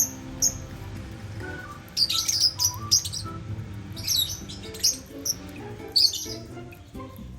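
Lovebirds chirping: short, sharp, high calls, in clusters about two, four and six seconds in, over steady background music.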